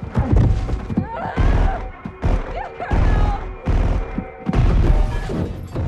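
Hand-to-hand fight sound effects: a run of heavy punch and body-impact thuds, about one a second, with men's grunts, over action music.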